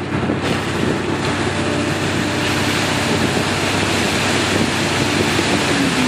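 Steady rushing noise with the low hum of excavator diesel engines running underneath.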